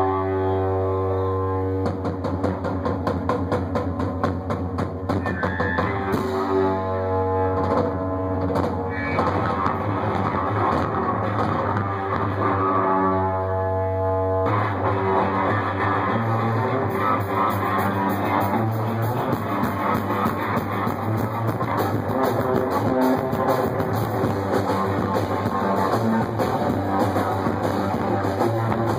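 Live punk-blues rock played as an instrumental break: electric guitar riffing over a drum kit, the drumming kicking in about two seconds in and the whole band getting busier and fuller about halfway through.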